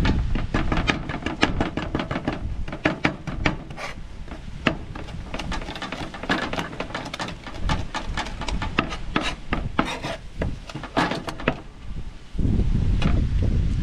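A large kitchen knife chopping and mincing on a plastic cutting board, with rapid, irregular taps of the blade on the board. A steady low rumble comes in near the end.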